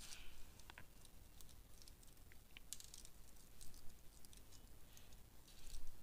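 Faint, scattered light ticks and soft rustles of thin insulated wires and the stripped cable end being handled by fingers.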